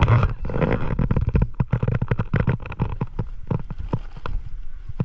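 Wind buffeting the camera's covered microphone: a low rumble with a hard gust at the start and a rapid, irregular run of pops and knocks.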